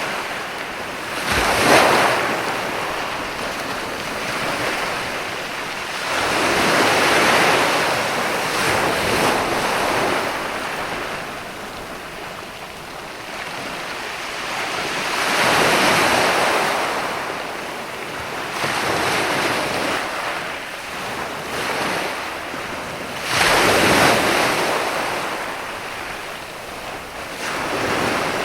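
Ocean surf: waves breaking and washing in, swelling every several seconds, the sharpest breaks about two seconds in and near the end, over a steady hiss of wind.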